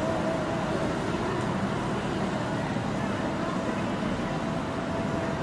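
Steady road traffic from cars and motorcycles on a busy multi-lane city road, an even, continuous noise. A faint steady whine joins near the end.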